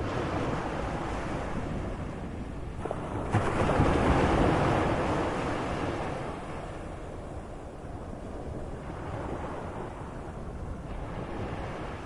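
Moderate sea surf: a wave surges in a few seconds in and ebbs away, with another building near the end, over a steady low rumble of water.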